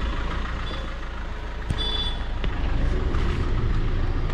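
Street traffic: a steady low rumble of vehicles, with a few short high-pitched beeps, the clearest about two seconds in.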